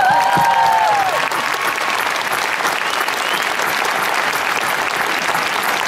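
Concert audience applauding steadily, with a few voices cheering in the first second.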